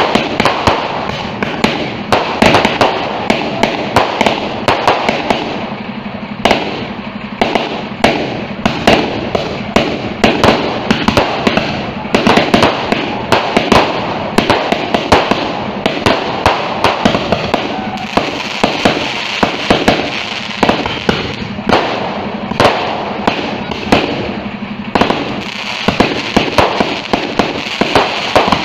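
Fireworks barrage from a multi-shot package, shots firing and bursting in a rapid, unbroken run of loud bangs with crackle between them.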